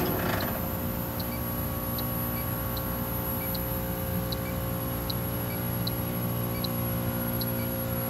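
Steady hum of a refrigeration rack's compressors, with an electronic refrigerant leak detector ticking at an even, slow rate of about one tick every 0.8 s, its idle rate: no leak is detected at the fitting.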